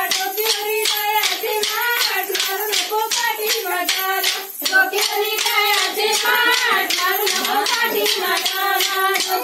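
Dancers' wooden sticks clacking together in a steady rhythm, about three to four clicks a second, with women singing a folk song over the beat. The clicking and singing dip briefly about halfway through, then pick up again.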